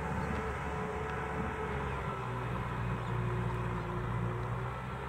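Tractor engine running steadily under load while pulling a plough through a paddy field, a continuous low hum.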